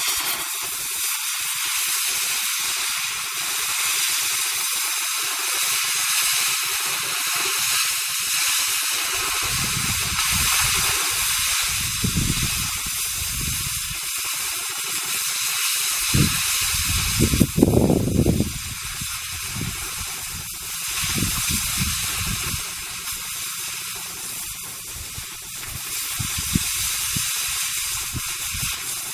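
Oxy-acetylene cutting torch cutting through steel, a steady hard hiss of the oxygen jet and flame that comes on abruptly at the outset. Irregular low rumbling surges join it in the second half, the loudest a brief burst a little past halfway.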